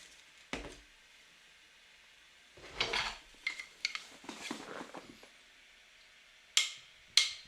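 Scattered light clicks and knocks of small hard objects handled on a table, a few at a time with quiet gaps between, ending in two sharp clicks.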